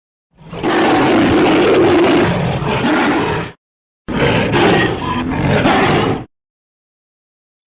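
Two creature roars from the 1933 King Kong sound effects, the first lasting about three seconds, the second about two, separated by a brief silence.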